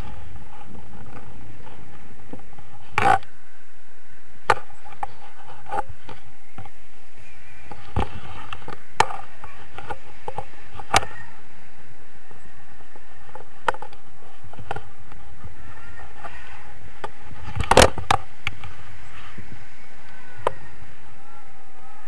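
Wind rushing over an action camera's microphone during a tandem paraglider flight, with sharp knocks from the camera mount now and then, the loudest about three quarters of the way through.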